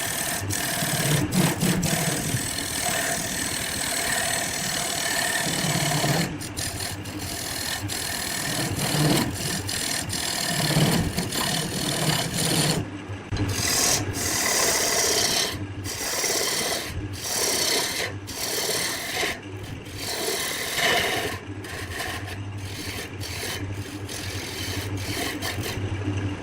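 Wood spinning on a lathe being cut and scraped by a turning tool: a continuous rasping over a low steady motor hum, broken by frequent abrupt cuts between short clips.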